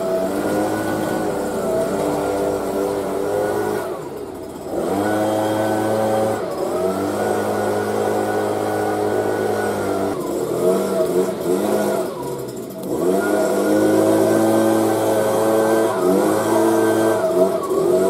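Leaf blower engine running at high throttle. It drops briefly to a lower pitch twice, about four seconds in and again about twelve seconds in, and revs back up each time.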